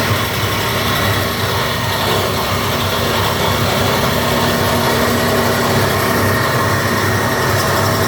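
Three-phase 10-horsepower scrap-wire chopping machine (copper wire granulator) running with a steady, loud mechanical noise and a low hum.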